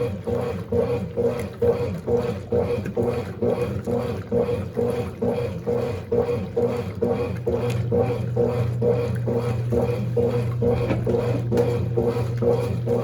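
Baby Mondial BLK20 washing machine running a wash with water and dark clothes: the motor hums steadily while the agitator churns in rhythmic surges, about two a second. The hum grows louder about eight seconds in.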